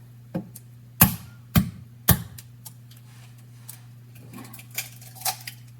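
An egg tapped three times in quick succession against the hard rim of a bowl or pan to crack the shell, followed by a few faint ticks and small clatters as it is opened one-handed.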